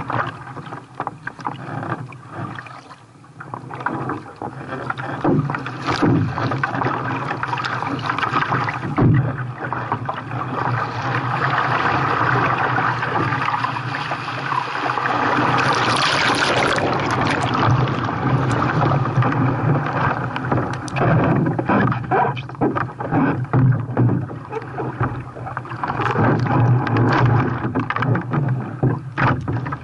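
Sea water splashing and rushing around a kayak being paddled in the surf, with many short splashes. A longer, louder rush of water swells in the middle and peaks about sixteen seconds in.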